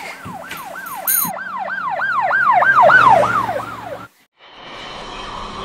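Police-style siren sound: a fast repeating yelp whose pitch swoops up and falls about three times a second. It grows louder, then cuts off abruptly about four seconds in.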